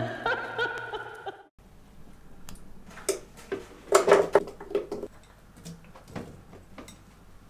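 Ingredients being tipped from small glass bowls into a plastic blender jug: scattered soft knocks and clicks of bowls against the jug and food dropping in. A short pitched sound lasting about a second and a half opens it.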